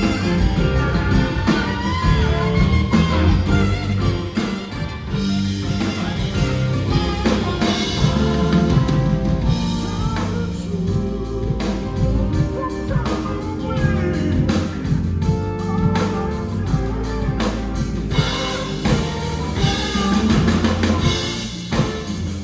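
Live band playing a song at a soundcheck, with a drum kit and guitar.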